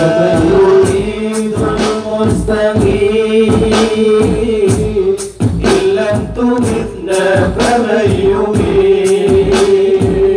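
A group of men singing an Islamic devotional song (sholawat) in Arabic through microphones and a loudspeaker, one voice leading with long wavering held notes over the others. Regular sharp hand-drum strikes keep the beat under the singing.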